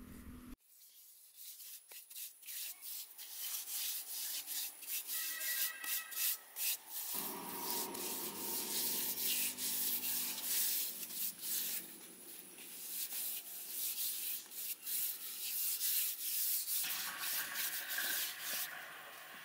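Rough scraping in rapid, repeated strokes, starting about a second in.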